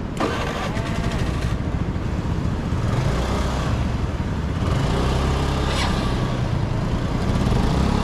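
Small motor scooter engines running at low revs as the scooters pull away, getting louder from about halfway through.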